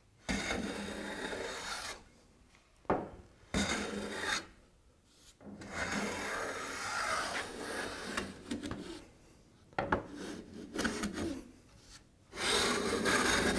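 Bevel-up jack plane taking thin shavings off the edge of a figured-wood frame, a series of push strokes each a second or two long with short pauses between, as the edge is trimmed flush.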